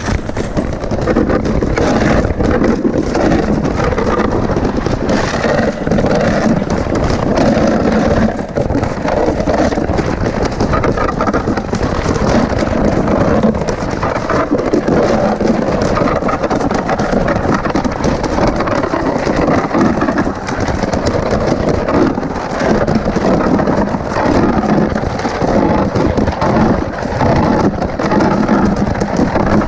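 Steady, loud scraping rumble of a rider sliding down a long ice slide, the noise of the body or sled rubbing over the ice.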